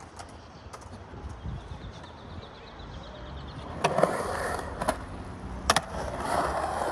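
Skateboard rolling on a concrete bowl, a rolling noise that builds after the drop-in, broken by sharp clacks of the board, the loudest just before six seconds in.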